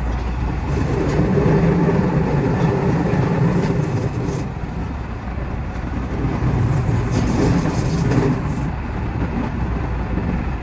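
Running noise of a JR West 207 series electric train under way, heard from inside the driver's cab: a steady low rumble of wheels on rail and the car body, swelling and easing a little.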